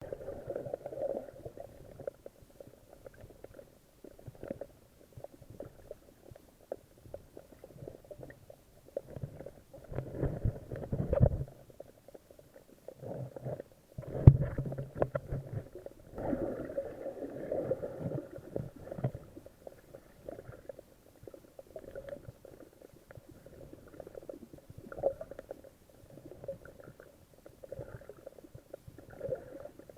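Muffled, irregular sloshing of sea water, with louder surges about ten and fourteen seconds in.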